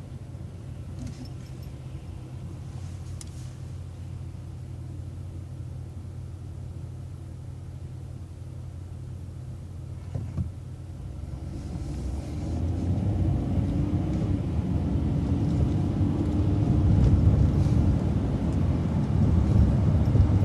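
Transit bus engine, heard from inside the bus, running with a steady low hum, then growing louder from about twelve seconds in with a rising whine as the bus accelerates.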